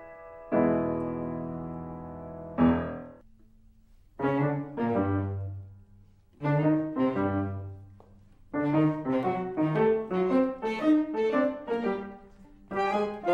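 Piano-led background music: a held chord, a short pause, a few short phrases, then a run of quick notes from about two-thirds of the way through.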